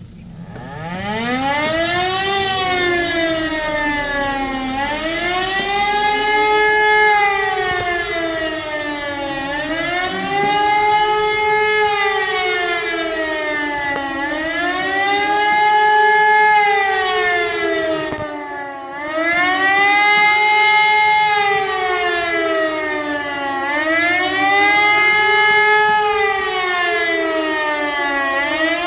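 Civil defence warning siren winding up from a low pitch, then wailing up and down in pitch, a cycle about every four and a half seconds: the rising-and-falling public warning signal, sounded as a test.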